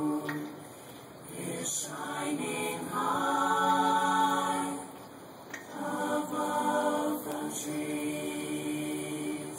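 Chamber choir singing long held chords, with two short breaks for breath about a second in and past the middle.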